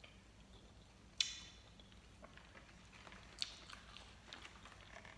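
Close-up chewing of chewy gummy candy, soft sticky mouth clicks. A sharp ringing click about a second in and a smaller one a little past the middle.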